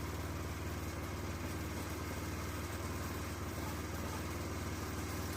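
Sawmill engine running steadily at an even speed, with no change in load.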